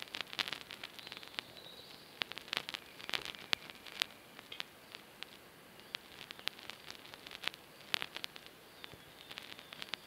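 Male western capercaillie giving its lek display song: a series of dry, sharp clicks in irregular runs.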